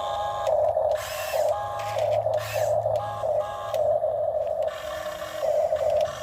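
Huina RC excavator's small electric motors whining in short pulses as its arm and bucket are worked, with brief rattling bursts in between.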